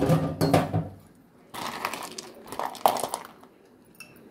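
Ice cubes being handled and put into glass tumblers of cold tea: irregular rustling and clinking, with one sharp clink about three seconds in.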